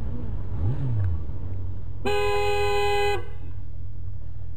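A vehicle horn sounds once, held for about a second, over the steady low rumble of the motorcycle running.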